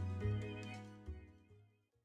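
Background music with a few held notes, fading out about a second and a half in.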